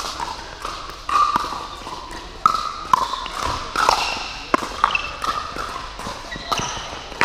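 Pickleball paddles striking a hard plastic ball and the ball bouncing on the court during a doubles rally: about a dozen sharp pocks at irregular intervals, echoing in a large indoor hall.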